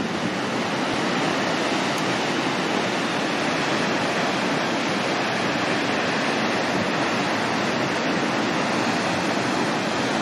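Aldeyjarfoss waterfall rushing steadily, an even hiss of falling and churning water.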